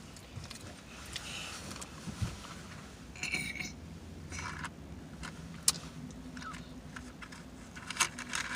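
Scattered small clicks and rustles from eating and handling small objects, over a low steady hum. The sharpest click comes about halfway through, and a cluster of clicks comes near the end.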